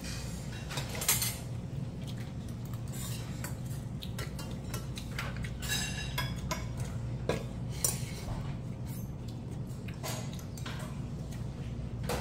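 Metal spoon clinking and scraping against a stainless steel bowl while stirring barley rice with vegetables: scattered light clinks over a steady low background hum.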